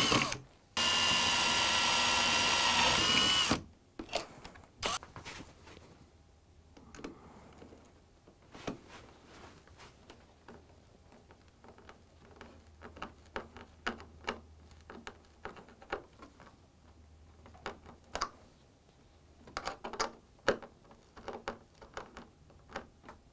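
Cordless drill boring a pilot hole between model railway track sleepers. It runs briefly, stops, then runs again for about three seconds, dropping slightly in pitch near the end before cutting off. Then comes a hand screwdriver driving small screws between the sleepers, with scattered light clicks and taps.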